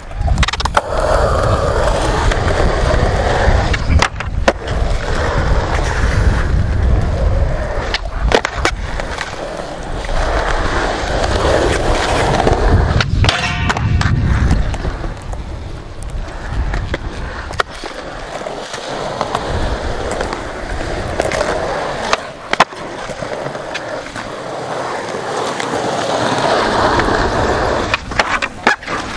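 Skateboard wheels rolling on concrete, the rumble swelling and fading as the skater pushes. A handful of sharp clacks from pops and landings of tricks come every few seconds.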